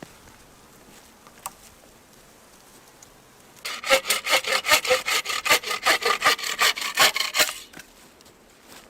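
Hand saw cutting through wood in quick, even back-and-forth strokes, about five a second, starting a little before halfway and stopping abruptly about four seconds later.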